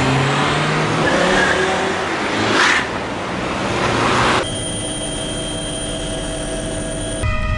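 Police cars driving off, with tyre and engine noise and a car passing by about two and a half seconds in. From about four and a half seconds in, a helicopter's steady engine hum and whine takes over. A siren begins just before the end.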